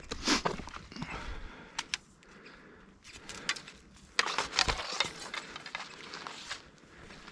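Footsteps and rustling of someone walking, with a few sharp clicks and clinks of carried gear, loudest near the start and again past the middle.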